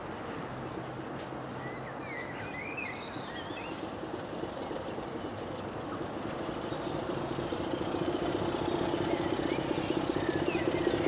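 Diesel locomotive engine running at a distance, its steady pulsing drone growing louder through the second half. Birds chirp a couple of times over it.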